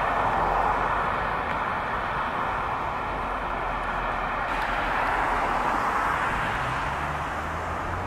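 Steady urban rumble of passing trains and traffic, with a faint steady whine over it that cuts off about four and a half seconds in.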